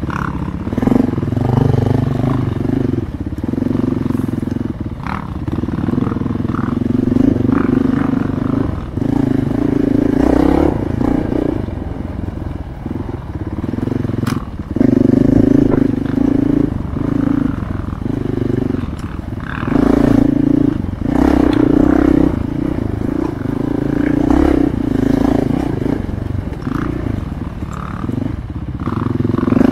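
Dirt bike engine heard close up from the bike itself, revving up and easing off again and again in bursts of a second or two as the throttle is worked, with a few sharp knocks over rough ground.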